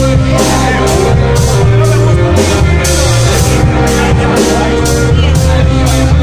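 Instrumental stoner rock band playing live: loud, heavily distorted guitars and bass over drums, with cymbals struck steadily about twice a second.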